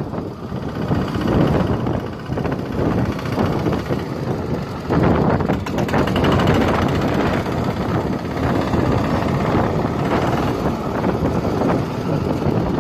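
Sandstorm wind blowing hard in gusts and buffeting the microphone.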